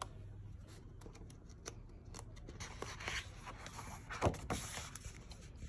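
Coloring book being opened and its pages turned by hand: quiet paper rustles and light taps, with a louder rustle about four seconds in.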